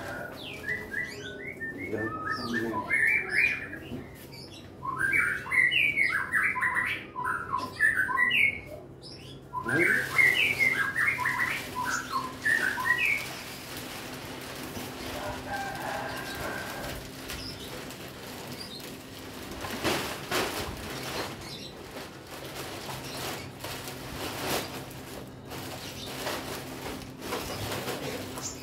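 Birds chirping in quick, busy runs for about the first thirteen seconds, over a steady low hum. After that come scattered rustling and a few knocks, with a couple of louder ones past the middle.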